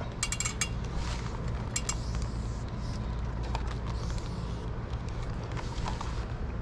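Microfiber towel rubbing across the glossy front cap of an RV, with a quick run of light clicks near the start and a few faint ticks later, over a steady low rumble.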